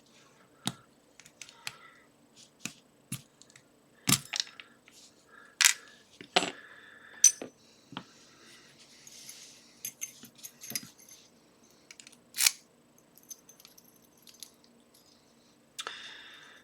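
Irregular sharp metallic clicks and taps, some with a brief ring, as tools work the C-clip off the back of a Trioving pin-tumbler lock cylinder, over a faint steady hum.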